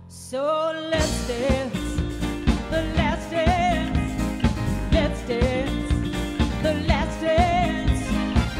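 Live band music with a woman singing: electric guitars, keyboards and drums. A held note and a rising note open, and about a second in the full band comes in with the drums, under a wavering, ornamented vocal line.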